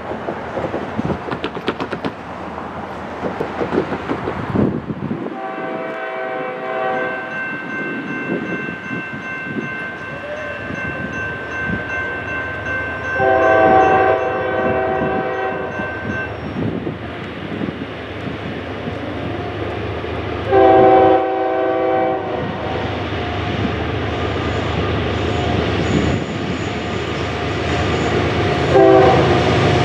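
Air horn of an approaching Norfolk Southern GE ES40DC locomotive blowing the grade-crossing signal in the distance: two long blasts, a short one, then the start of a final long one near the end. A low train rumble grows louder in the background.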